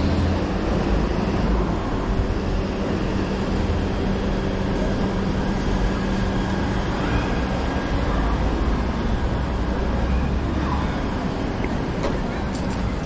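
City street traffic: motor vehicles running and passing in a steady low rumble, with one engine's steady hum that fades out about seven seconds in.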